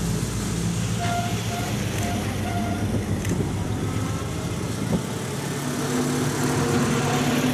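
Classic cars driving slowly past one after another, engines running and tyres on the road. Near the end the low engine sound of an approaching 1920s-era sedan grows louder.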